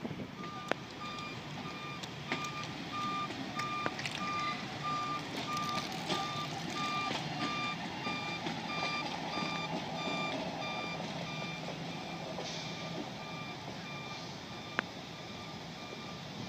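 A hi-rail utility truck's backup alarm beeping steadily, about two beeps a second, as the truck reverses along the track, over a low engine rumble. The beeps grow fainter over the last few seconds.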